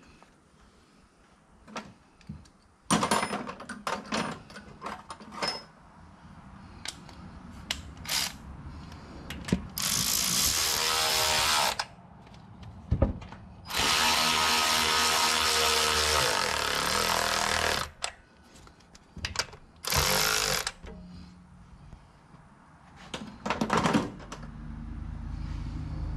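Handheld power tool run in three bursts, the longest about four seconds, its pitch dropping as it runs. Metal clinks and knocks of hand tools come before and between the bursts.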